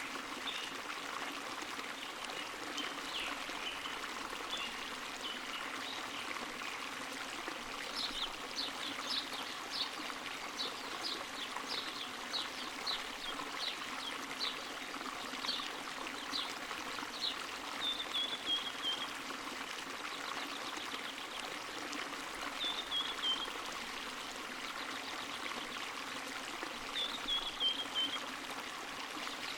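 Running water trickling and flowing steadily, like a small spring-fed stream. Through the middle comes a series of short high-pitched notes about once a second, and later three brief falling runs of notes.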